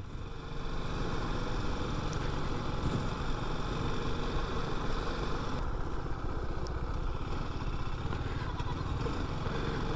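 TVS Apache RR 310 motorcycle being ridden, its single-cylinder engine running steadily.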